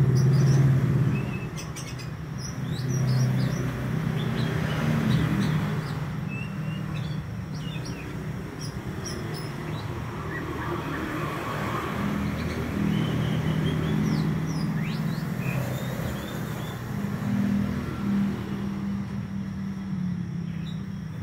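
Oriental magpie-robin, a young caged male, singing in short scattered chirps and whistled notes over a steady low rumble.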